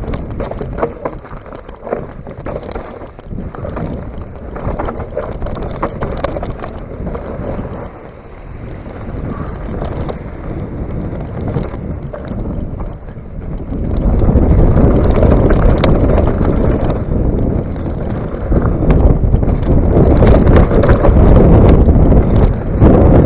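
Mountain bike riding fast down a rough dirt trail: tyres rattling and clicking over roots, stones and dirt, with wind buffeting the microphone. A little past halfway the wind and rumble grow much louder as the bike picks up speed on an open gravel stretch.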